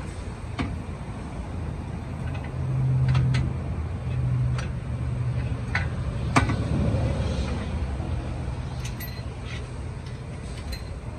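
Scattered sharp metal clinks as steel U-bolts, washers and nuts are handled and fitted against a steel boat-trailer tongue and step tube. A steady low hum runs underneath, briefly louder about three and four and a half seconds in.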